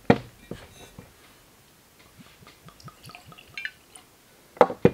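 Bourbon poured from a glass bottle into a tasting glass: a quiet run of small glugs and drips. There is a sharp knock right at the start and a couple more near the end, the bottle knocking on the wooden bar.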